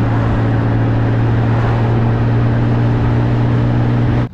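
Honda Gold Wing motorcycle riding at a steady speed: an even engine drone over a haze of wind and road noise, cutting off suddenly near the end.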